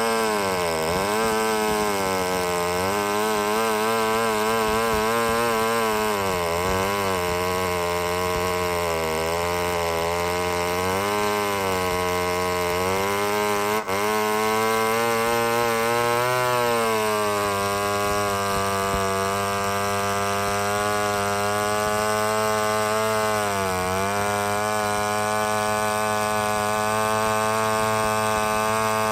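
Vintage single-cylinder two-stroke chainsaw running at high speed; its pitch repeatedly sags and climbs back, settling to a steady high note for the last ten seconds or so.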